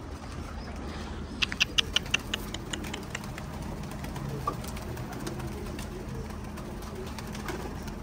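Domestic pigeons cooing on the loft. About a second and a half in comes a quick run of about eight sharp claps.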